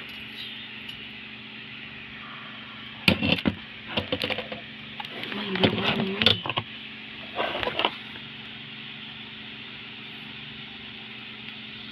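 Knocks, clicks and rattles of a microphone scissor-arm stand and pop filter being handled, in three short clusters about three, five and a half and seven and a half seconds in, over a steady hiss.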